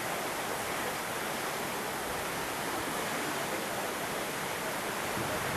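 Steady, even rushing hiss with no gusts or breaks: the wind and water noise of a cruise ship under way, heard from its open deck.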